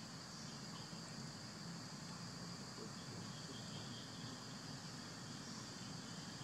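Faint steady high-pitched chirring of insects, with a low background rumble beneath it.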